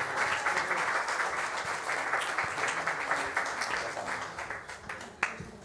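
Audience applauding, dense at first, then thinning out to a few scattered claps near the end.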